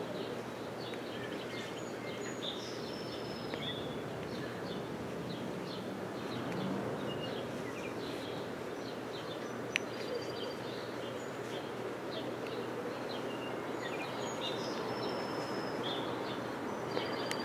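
Steady background hiss with faint high chirps here and there, and one sharp click about ten seconds in.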